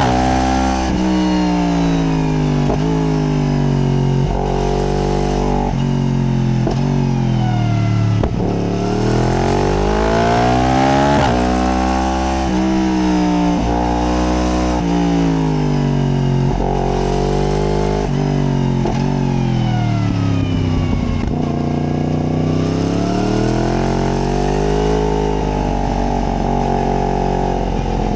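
Yamaha MT-10's crossplane inline-four engine under riding, its pitch climbing as it accelerates and falling as it slows, over and over, with sudden steps at the gear changes.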